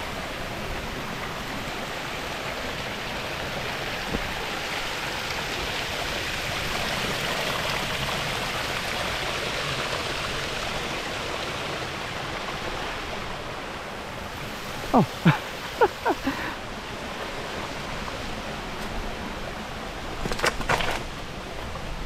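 Waterfall rushing steadily over rocks. Partway through come a few brief sounds that fall in pitch, and near the end a short cluster of clicks.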